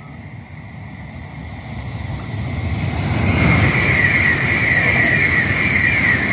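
Iryo S-109 (Hitachi ETR 1000) high-speed electric train passing at speed: a rush of wheel and air noise with a steady high hiss, growing from about two seconds in and loudest over the last three seconds as the cars go by.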